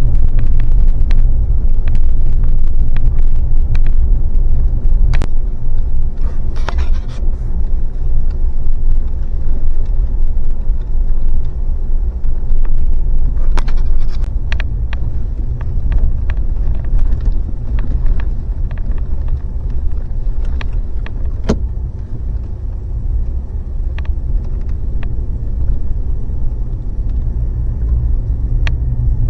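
A vehicle driving, heard from inside the cabin: a steady low rumble of engine and road noise, with scattered sharp clicks and knocks from the rough road.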